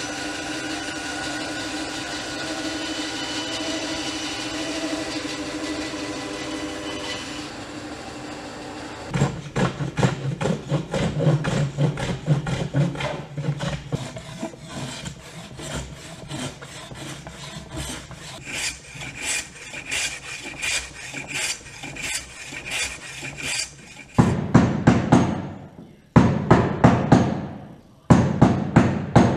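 A bandsaw runs steadily as a hardwood board is fed through it, its hum fading after about seven seconds. Then a hand plane shaves the board's edge in quick repeated strokes. Near the end come three runs of rapid hammer blows.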